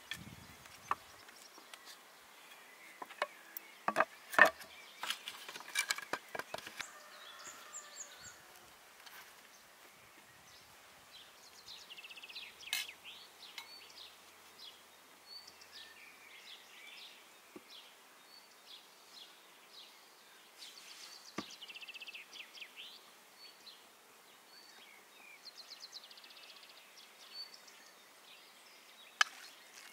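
Scattered sharp clicks and knocks, clustered in the first several seconds and loudest about four seconds in, with one more near the end; in between, birds chirp now and then in short runs of quick notes.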